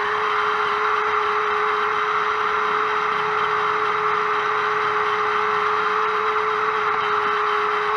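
Stock electric motor and gear train of a 1/32 Orlandoo Hunter OH32P02 micro RC crawler running at a steady speed: an even whine with one held tone, heard close up from the car's onboard camera.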